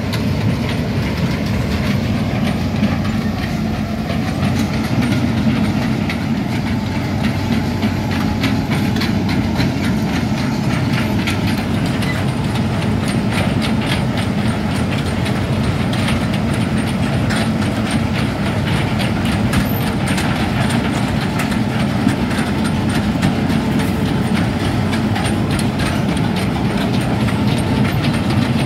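Hitachi Zaxis 210F amphibious excavator travelling on its pontoon tracks: the diesel engine runs steadily under a continuous fast clatter from the moving track cleats.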